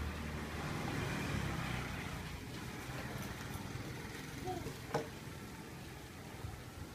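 A low engine hum that fades out over the first two seconds or so, over the soft hiss of a pot of meat simmering with lemongrass and lime leaves. About five seconds in, the metal ladle gives one sharp clink against the aluminium pot.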